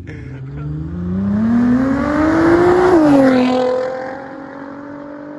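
Nissan GT-R R35's twin-turbo V6 with a titanium exhaust accelerating away, its note rising for about three seconds, then dropping abruptly and settling to a steady, quieter drone as the car moves off.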